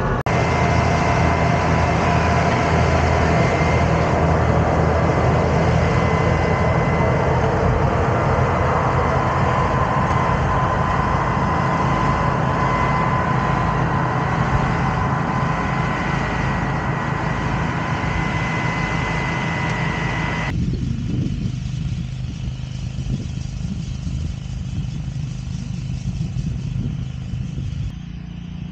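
Large farm tractor's diesel engine running steadily, with a steady high whine over it. About two-thirds of the way through, the sound changes abruptly to a duller, lower engine hum.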